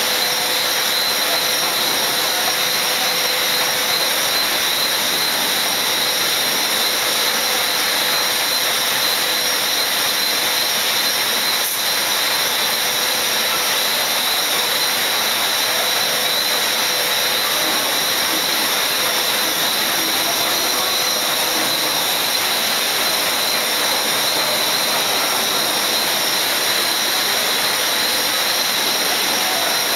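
Running noise of a billet continuous casting machine in operation: a loud, steady rushing hiss with a few steady high tones running through it.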